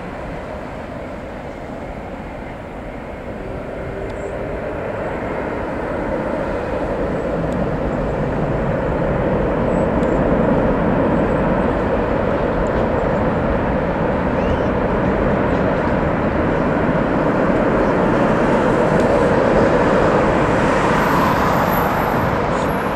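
Jet airliner engines running after landing, a noisy rumble that swells over several seconds and then holds steady and loud.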